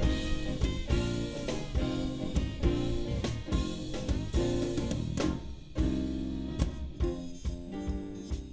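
A live jazz band playing an instrumental passage: drum kit keeping a steady beat under saxophone and keyboard.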